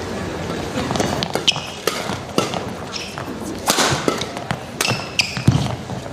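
Badminton doubles rally: sharp cracks of rackets striking the shuttlecock in quick succession, with court shoes squeaking on the floor and a steady crowd murmur under it.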